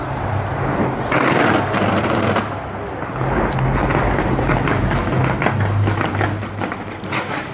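Fireworks from the Taipei 101 New Year show bursting and crackling in quick succession, many small pops close together. A louder stretch of bursts comes about a second in.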